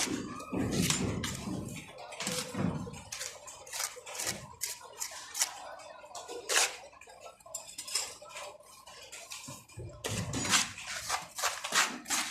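Irregular clattering and scraping of hard objects, with many short clicks.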